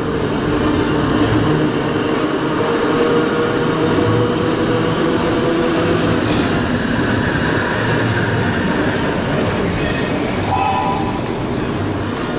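Rail vehicle running steadily along the track, a continuous rolling rumble of wheels on rails, dubbed over film of an old electric tram; a brief higher tone rings out about ten seconds in.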